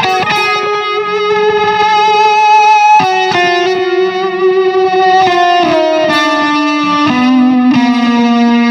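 Electric guitar played through a Keeley Halo Core delay pedal: a slow line of long sustained single notes with vibrato, stepping down in pitch with a slide a little past the middle.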